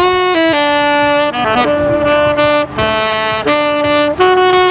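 Saxophone played live, a melody of long held notes that step from pitch to pitch.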